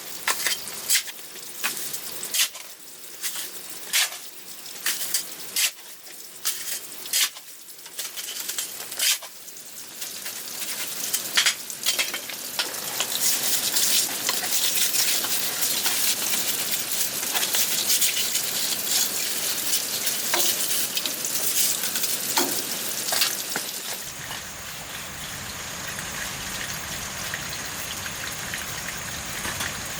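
Food sizzling in a pan, with sharp clicks and scrapes of stirring over the first dozen seconds and a denser steady sizzle after that. About 24 seconds in, the sound cuts to steady flowing water.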